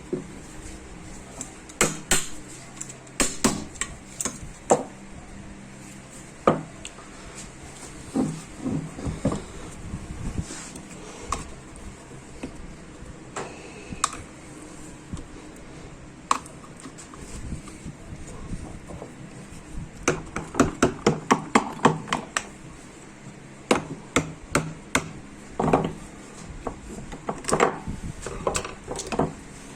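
Hammer striking metal parts of a power-steering rack and pinion: scattered single taps, then a quick run of about eight strikes about two-thirds of the way in, and a few more near the end.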